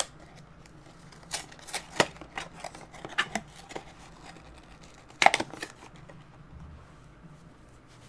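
Small cardboard blind boxes and plastic packaging being handled: a scattered run of sharp clicks and rustles, the loudest a quick cluster about five seconds in.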